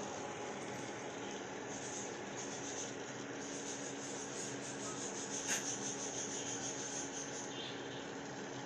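Water boiling in a pot on an induction cooktop: a steady bubbling hiss over a low hum, with a single click about five and a half seconds in.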